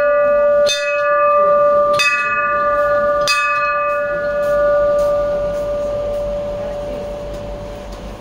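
Hindu temple bell struck three times, about a second and a quarter apart, then left to ring out, its clear tone fading slowly over several seconds.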